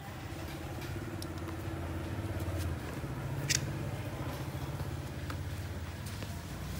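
A motor or engine running steadily, with a sharp click about three and a half seconds in.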